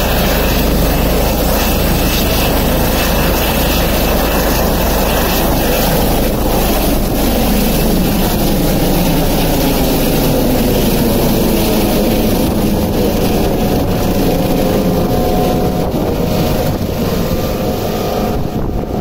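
Airbus H145 emergency medical helicopter taking off: loud, steady turbine and rotor noise as it lifts off the pad and climbs away overhead. In the second half the tones slide downward as it moves off.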